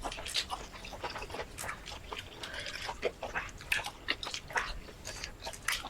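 Close-miked eating sounds of shrimp curry and rice being chewed: a quick, irregular run of wet clicks, lip-smacks and small crunches.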